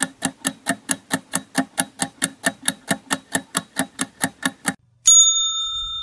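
Quiz countdown timer sound effect: fast clock ticking, about four to five ticks a second, which stops about five seconds in. A single bright bell ding follows and rings on as it fades, marking time up and the answer reveal.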